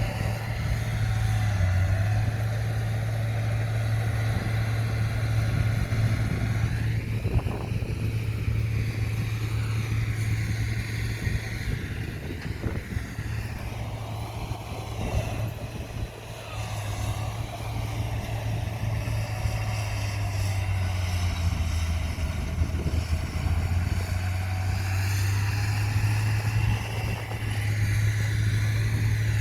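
Komatsu bulldozer's diesel engine running steadily under load while it pushes soil, with a strong low engine note and a brief easing about halfway through.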